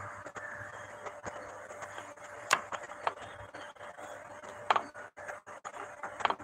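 Four short, sharp knocks or taps, two of them much louder, over a faint steady hum.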